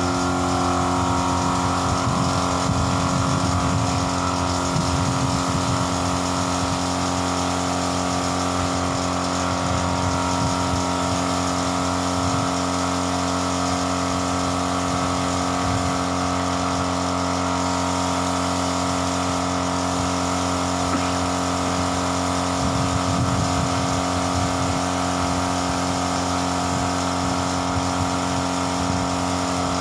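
Air compressor for the spray gun running with a steady, unchanging hum.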